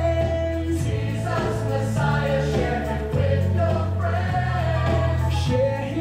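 Gospel song with a choir singing over a bass line whose notes change every second or so.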